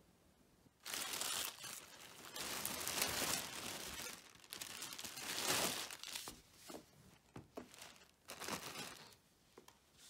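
Crinkling and rustling as a new canvas jacket and its wrapping are handled, in irregular bursts that start about a second in and die away into a few small clicks near the end.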